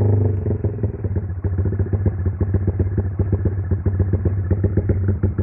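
Motorcycle engine running on an aftermarket Juken 5 ECU sound setting: about half a second in, the steady idle breaks into a fast, uneven, choppy pulsing from the exhaust, a programmed effect rather than a fault.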